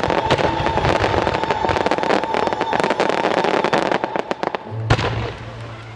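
A fireworks finale barrage: many rapid bangs and crackles in dense succession. They thin out, one big bang comes about five seconds in, and then the sound dies away.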